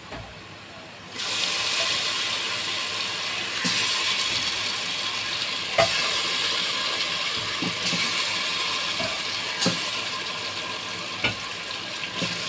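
Masala-coated chicken dropped into hot oil and ghee in a metal pot: a loud sizzle starts suddenly about a second in and keeps on, growing stronger about four seconds in, with a few clinks against the pot.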